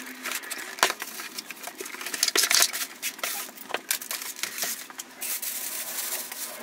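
Packaging being handled: a cardboard box and polystyrene foam packing, with a string of knocks, taps and scrapes, one sharp knock about a second in. Near the end a plastic bag rustles as it is pulled off.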